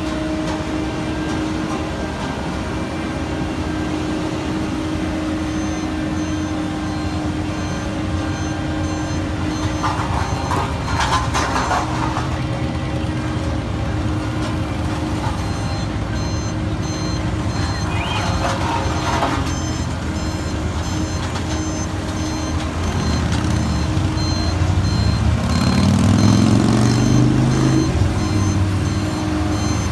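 Diesel engines of heavy paving equipment running steadily, with a reversing alarm beeping from about six seconds in, more steadily in the second half. Two short bursts of noise come in the middle, and an engine revs up near the end, the loudest part.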